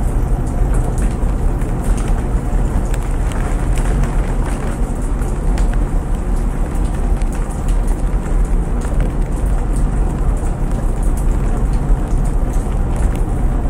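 Steady rain with scattered drop ticks over a continuous low rumble from laundry machines running.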